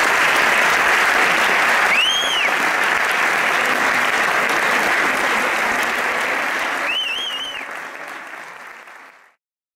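Audience applauding steadily after a speech, with two short high whistles rising over the clapping, about two seconds in and about seven seconds in. The applause fades out and stops near the end.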